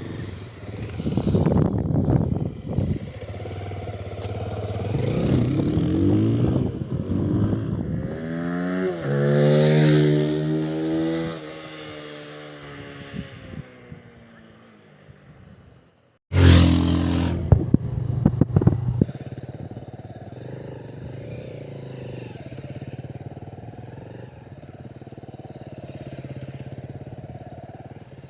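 Bajaj Pulsar 220F's single-cylinder engine revved through its exhaust. Its pitch climbs and falls in one long rev about ten seconds in. After a brief silence comes a sharp burst of revs, and it then settles into a steady idle for the last third.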